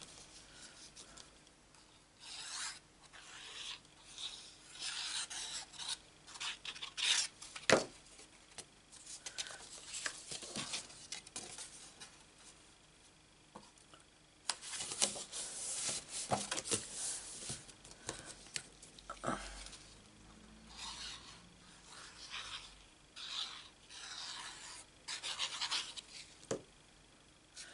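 Sheets of cardstock being handled, slid and rubbed against each other and the craft mat, in short scraping rustles, with a sharp tap about eight seconds in.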